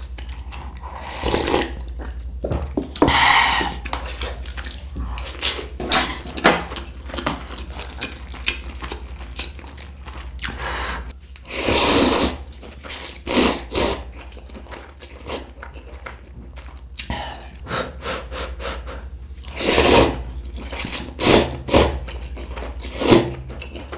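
Close-up eating sounds: wet chewing, smacking and slurping, a run of short sharp mouth noises with longer slurps about twelve and twenty seconds in, over a steady low hum.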